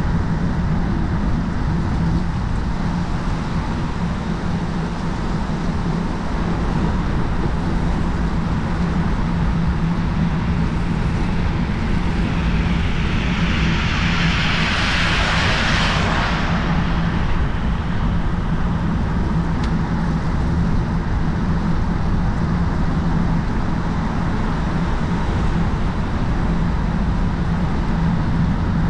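Riding noise of a gravel bicycle on Schwalbe G-One Bite 40 mm tyres: steady wind rumble on the camera and tyre noise, with a steady low hum. About halfway through, a louder hiss swells and fades over about four seconds.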